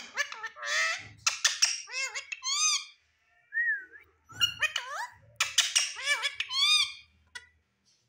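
Indian ringneck parrot calling in two bouts of quick, sharp whistled and squawked notes, with a single short whistle in the pause between them.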